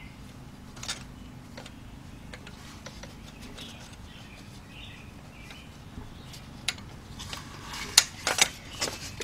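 Pliers clicking and clinking against a metal hose clamp on the engine's return line while it is squeezed into place, with a few faint clicks at first and a busier run of sharp metallic clinks near the end.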